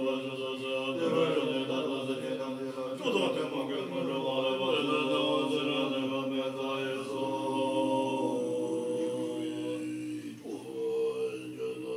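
Tibetan Buddhist monks chanting together in low unison, holding long sustained notes. The chant dips briefly near the end and then resumes.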